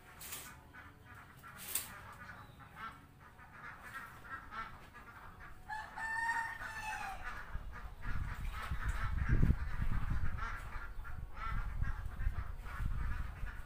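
A flock of ducks quacking and chattering, with one longer, arching call about six seconds in. Two sharp knocks come near the start, and a low rumble sets in about eight seconds in.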